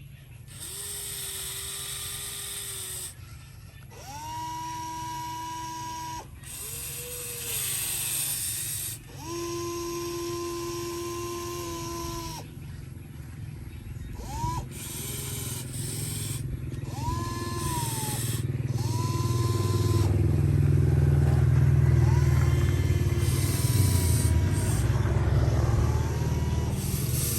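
Excavator motors whining in repeated start-stop runs of one to three seconds, each rising in pitch as it starts, over a steady low hum. A heavier low rumble builds up and is loudest about two-thirds of the way through.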